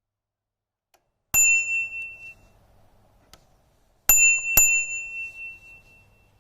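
Crane E-Ne bicycle bell rung three times: one strike, then two in quick succession about three seconds later. Each strike rings a clear, high metallic tone that fades over a second or two.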